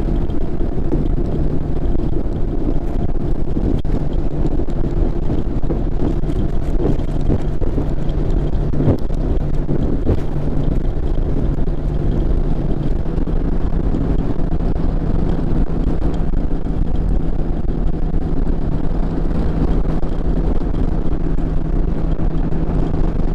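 Bass boat's outboard motor running steadily at high speed, about 68 mph, with wind on the microphone. The engine note steps up slightly about halfway through, and there are a few knocks of the hull over chop in the first half.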